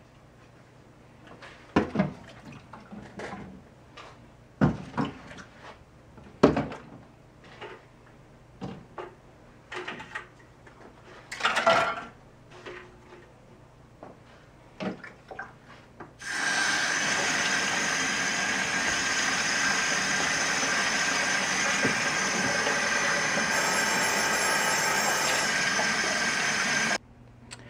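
Scattered knocks and clatter of plastic parts being handled. About sixteen seconds in, a faucet runs water steadily into a plastic utility sink, filling it for a soak, and the sound stops abruptly near the end.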